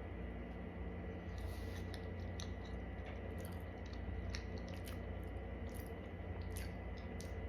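A person chewing a soft mini cupcake with the mouth close to the microphone: scattered small wet clicks and smacks over a steady low hum.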